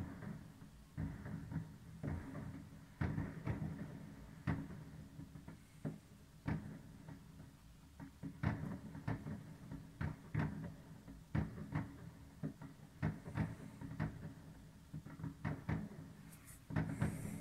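New Year's Eve firecrackers and fireworks going off: irregular bangs, about one or two a second, over a low rumble.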